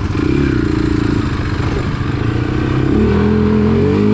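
Four-wheeler (ATV) engine revving under throttle, its pitch climbing about three seconds in as it accelerates.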